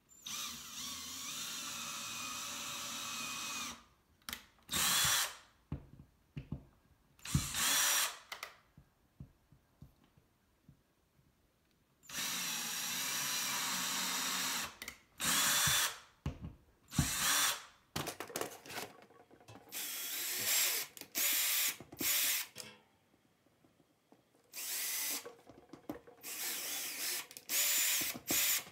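Power drill pre-drilling screw holes, with long runs of a few seconds near the start and again about twelve seconds in, and many short bursts of the trigger in between and towards the end.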